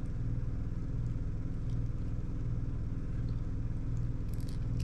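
A steady low mechanical hum with a slow, regular pulse, and a few faint clicks of a small plastic action-figure shotgun being handled near the end.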